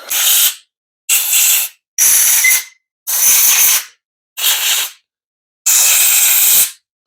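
Compressed-air blow gun fired in six short blasts of hiss, the last one the longest, clearing junk out of bolt holes.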